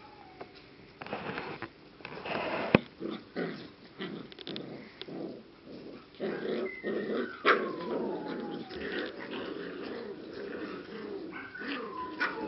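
English Cocker Spaniel puppies play-growling and yipping as they wrestle, with two high whining cries that slide down in pitch, about halfway through and near the end. A single sharp tap about three seconds in.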